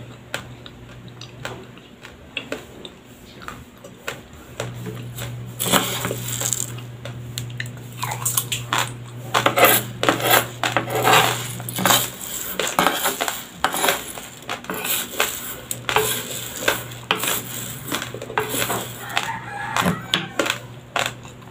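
Crunching of raw white rice grains being chewed close to the microphone, mixed with a metal spoon clinking and scraping as it scoops dry rice. The clicks are sparse at first and turn dense and crisp from about six seconds in.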